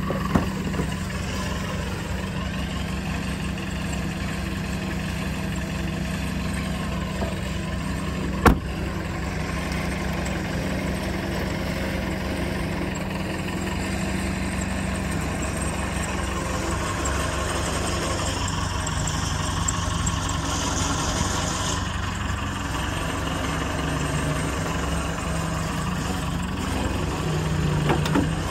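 A 2012 Dodge Ram 1500 pickup's engine idling steadily, with one sharp click about eight seconds in.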